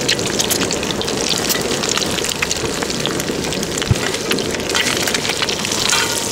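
Hot oil sizzling and crackling steadily around a Thai-style omelette deep-frying in a wok, with a single low knock about four seconds in.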